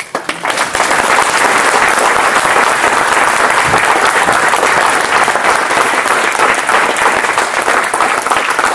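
Audience applauding the end of a lecture: loud, dense clapping that swells up at once and holds steady.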